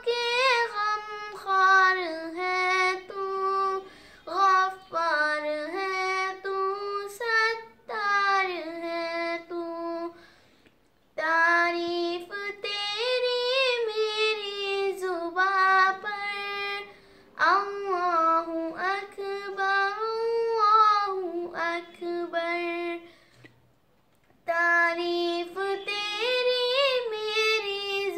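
A young girl singing a devotional song solo and unaccompanied, with long held, gliding notes. She pauses twice for a breath between lines, about ten seconds in and again about twenty-three seconds in.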